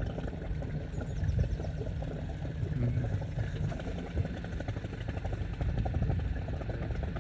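Small boat's engine running steadily with a low rumble.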